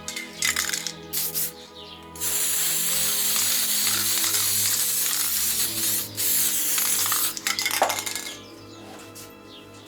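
Aerosol spray paint can spraying: short spurts early on, then a long hiss of about four seconds, broken briefly once, then more short spurts. Background music plays throughout.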